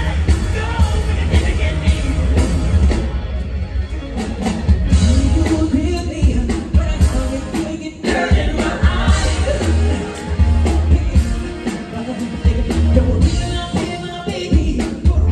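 Live rock-pop band playing with a lead singer: electric guitar and a heavy, pulsing bass beat under the vocals, with a brief drop in loudness about eight seconds in.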